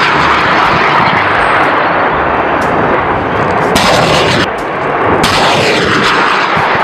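Rocket-launch sound effect: a loud, continuous rushing noise with slow falling sweeps near the start and again about five seconds in.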